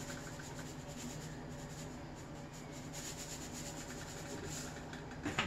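Salt shaken from a plastic shaker over a pot of soup: a faint, steady scratchy rustle. A short sharp knock near the end.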